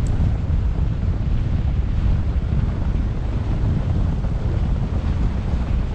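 Wind buffeting the microphone of an action camera mounted on the roof of a moving car, a steady, rumbling noise with road noise mixed in.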